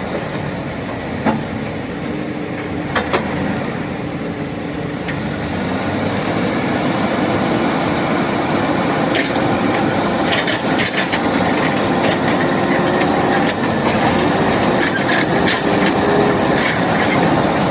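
Backhoe loader's diesel engine running under load, rising in level about six seconds in, with repeated knocks and clatter through the second half.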